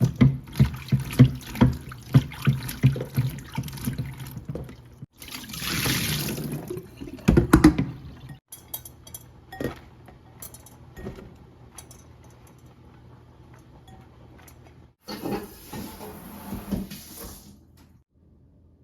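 Kitchen work at a sink: a run of quick repeated strokes for the first few seconds, then tap water running briefly, a few loud knocks of dishes, light clicking, and water running again near the end.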